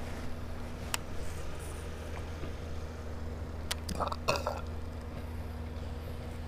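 Steady low hum with a faint whine, typical of an electric trolling motor holding a bass boat along a dock. A single sharp click about a second in and a short burst of clicks and splashy noise around four seconds, from the angler handling the baitcasting rod and reel.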